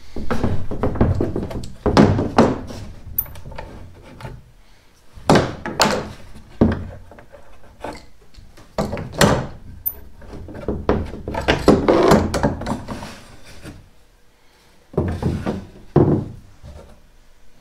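Steel bar clamps being unscrewed and lifted off plywood panels, the clamps clattering as they are put down and the panels and wooden posts knocking on the plywood floor: irregular clusters of thunks and rattles with short pauses between.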